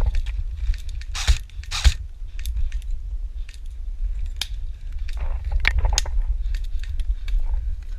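A run of short sharp clicks and crackles, two louder cracks about half a second apart near the start, over a steady low rumble of wind and handling on a body-worn microphone.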